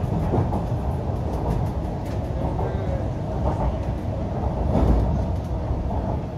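Cabin running noise of an MTR Q-Train metro car under way: a steady rumble of wheels on rails, with a louder swell about five seconds in.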